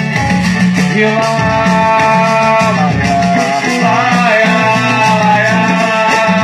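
Live pagode band music: a steady, repeating bass line under guitar and a sustained melody line.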